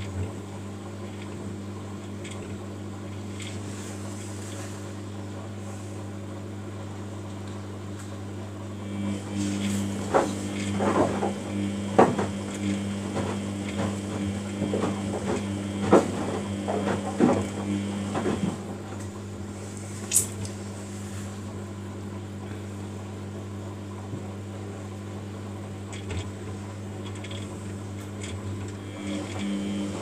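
Washing machine drums turning on a wash cycle: a steady motor hum, with a run of irregular knocks and clunks from about nine to nineteen seconds in and again at the very end.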